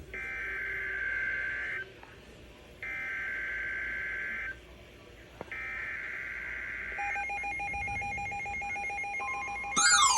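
NOAA weather radio sending the three Emergency Alert System SAME header bursts, the screeching digital data tones that open a new alert. A steady attention tone then starts about seven seconds in, and a second tone joins about two seconds later. Just before the end, a loud alarm tone sweeps up and starts to fall.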